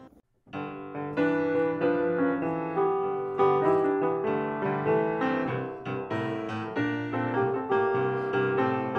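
Solo piano music playing a melody of struck, ringing notes over a lower accompaniment. It begins about half a second in after a brief moment of silence.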